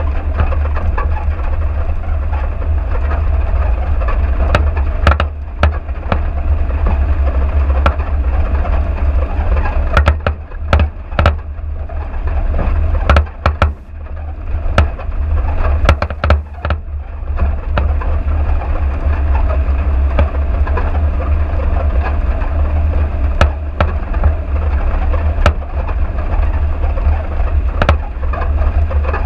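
Car driving along a rutted dirt track, a steady low rumble of engine and road noise with frequent knocks and rattles from bumps, thickest about halfway through.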